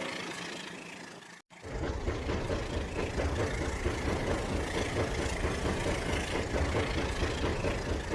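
A train horn's last note fading away, a short break, then a train engine running with a heavy, pulsing low rumble.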